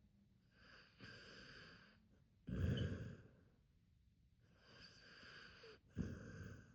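Akita dog snoring in its sleep: two breaths, each a softer rasping draw followed by a sudden, louder, deeper puff, the second about three and a half seconds after the first.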